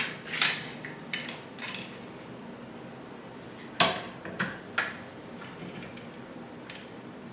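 Irregular clinks and knocks of small metal hardware and parts being handled and fitted into an aluminium-extrusion frame, about half a dozen of them, with the sharpest knock about four seconds in.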